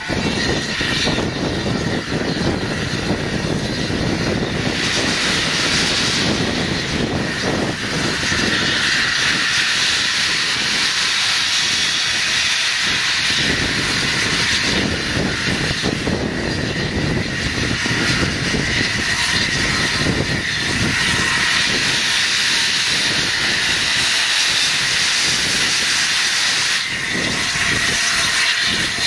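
Steam locomotive 60163 Tornado, an LNER Peppercorn A1 Pacific, standing in steam with a loud steady hiss of escaping steam over a low rumble.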